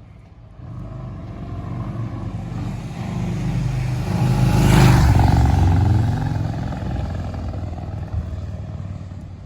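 V-twin cruiser motorcycle passing by: its engine note builds over about four seconds, peaks just before the middle, then drops in pitch and fades.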